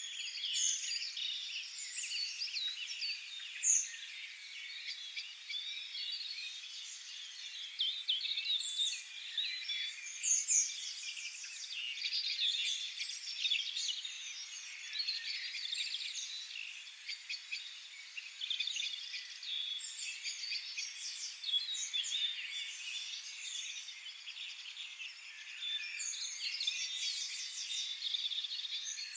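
Several songbirds singing at once, an unbroken chorus of overlapping high chirps and rapid trills.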